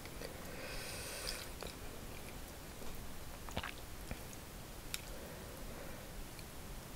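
Close-miked chewing of a mouthful of food, with a few light, sharp clicks of utensils.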